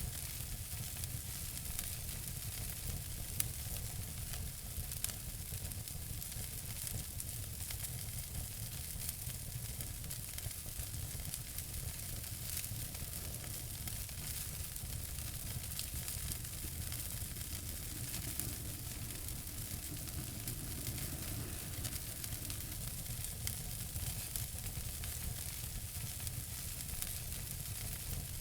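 Wood fire burning in a fireplace: a steady hiss with many small, sharp crackles and pops scattered throughout, over a low rumble.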